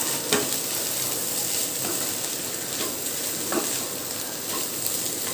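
Beans and scrambled egg sizzling in a hot pan while a wooden spatula stirs through them, with a few light scrapes against the pan.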